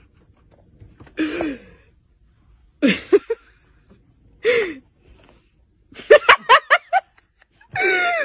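A person's short gasps and breathy laughs, then a quick run of laughter about six seconds in.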